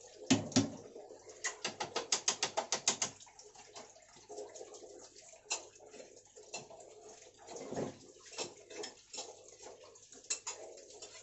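Steel ladle stirring watery masala and rice in an aluminium pot, knocking and clinking against the metal: two heavy knocks at the start, a quick run of about a dozen clinks about two seconds in, then scattered lighter clinks over liquid sloshing.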